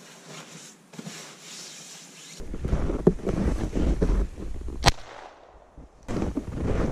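Soft rustling of a sleeping bag being spread on a mattress, then crunching footsteps in snow with a low rumble on the microphone. A single sharp crack comes about five seconds in.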